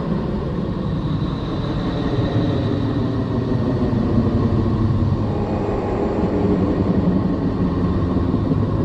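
A planetary 'sound' recording: a steady low rumbling drone with faint thin tones held above it, of the kind made by turning a space probe's radio and plasma-wave measurements into audio.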